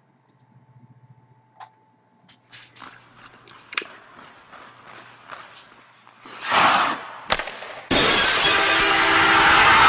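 Intro sound effects: scattered sharp clicks and cracks thicken into a swelling crash of breaking glass, with another sharp crack just after. About eight seconds in, a loud steady roar sets in.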